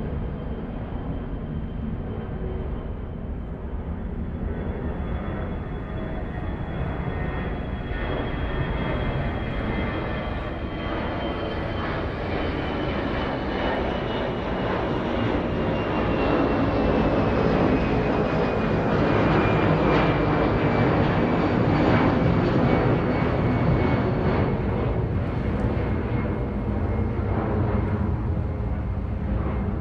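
Airplane engines running as the aircraft goes by: a steady rush with a high whine that slowly falls in pitch, growing louder to a peak about two-thirds of the way through, then easing off a little.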